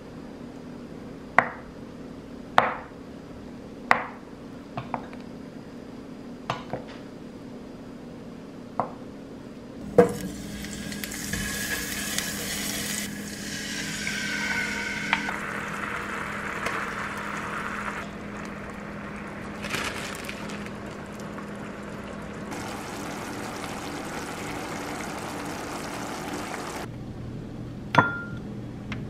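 Kitchen knife slicing through a block of tofu, the blade tapping the wooden cutting board about seven times. About ten seconds in, a steady hiss of cooking in a frying pan begins as a sauce is poured in. Near the end, a rice paddle clinks once against a ceramic bowl.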